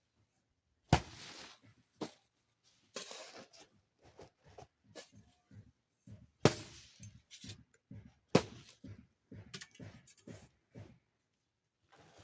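Manual building work: three sharp hard knocks, each followed by a short scraping rush, with scattered smaller knocks and scrapes in between.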